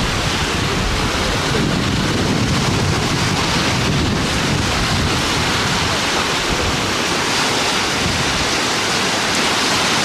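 Sea surf: small waves breaking and washing onto the shore in a steady rush, with wind buffeting the microphone.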